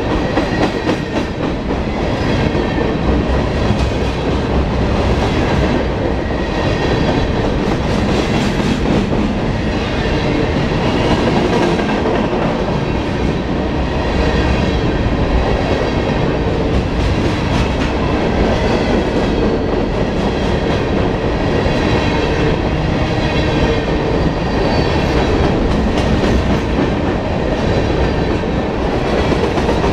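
Open-top coal cars of a CSX coal train rolling past at close range: a steady, loud rumble of steel wheels on the rails with a repeating clickety-clack as each car's wheels go by.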